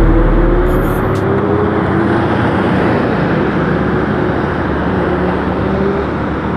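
Motorcycle riding along a highway: steady wind and road rush with the engine note rising slowly in pitch as it picks up speed.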